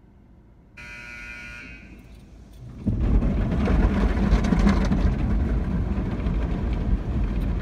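Automatic car wash tunnel starting up again after stopping, heard from inside the car. A buzzer sounds for about a second, then about three seconds in the wash machinery and water spray come on with a loud, steady rumbling noise.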